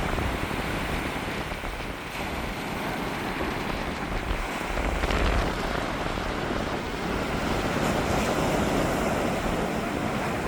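Strong wind buffeting the microphone with a low rumble, over the steady wash of surf on a beach.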